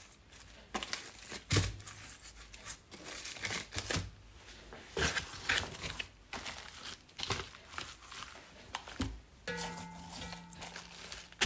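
Paper crinkling and rustling under hands rubbing dry seasoning into raw pork spare ribs, in irregular rustles and light taps.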